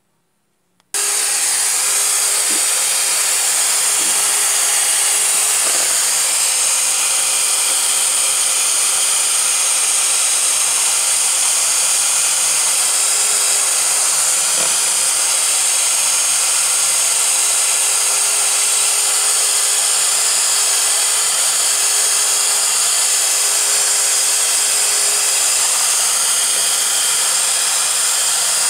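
Electric mixer switching on about a second in and running steadily with a high whir, its beaters whipping egg whites into stiff peaks.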